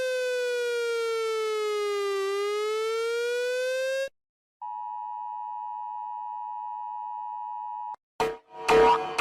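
Electronic emergency alert alarm tones: a buzzy tone slides slowly down in pitch and back up, then cuts off about four seconds in. After a short gap a quieter, steady high tone holds for about three seconds, and near the end a loud pulsing alarm begins.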